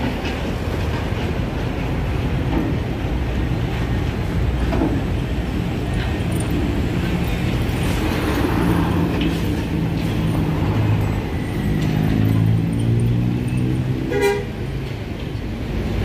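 Road traffic passing close by: a steady low drone of heavy-vehicle engines, with one engine note rising slightly in pitch toward the end, then a short sharp sound.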